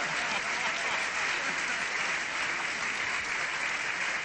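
A crowd applauding steadily, with laughter mixed in, in reaction to a joke.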